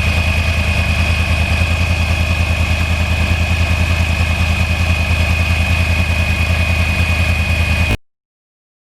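2009 Yamaha R1's crossplane inline-four engine idling steadily with a fast even pulse, a steady high whine over it. It cuts off suddenly near the end.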